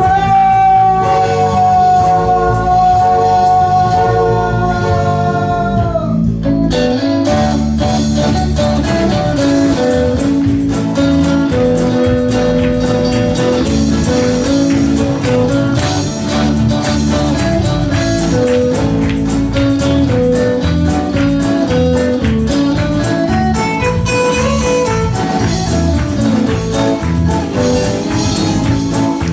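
Live band of electric guitars, bass guitar, keyboard and drums playing an up-tempo song. It opens with one long held note that falls slightly, and the full band comes in with a steady beat after about six seconds.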